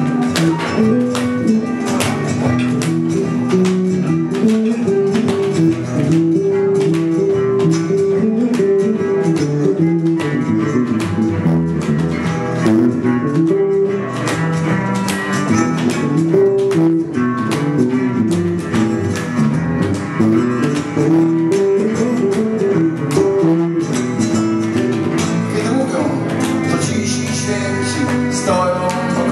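Live acoustic music: classical guitar plucked and strummed with a cello playing along, in a Latin or flamenco-tinged style, continuing without a break.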